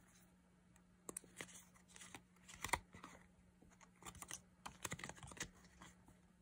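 Folded paper instruction leaflet being opened out and handled: irregular soft crackles and taps of paper, starting about a second in.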